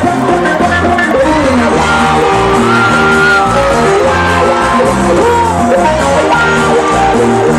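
Live cumbia band music with a steady bass beat and guitar, and a voice singing over it, loud and echoing in a large hall.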